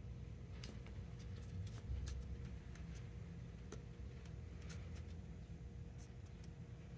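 Faint, irregular clicks and light rustling of a plastic tennis-racket grommet strip and the racket frame being handled, over a steady low room hum.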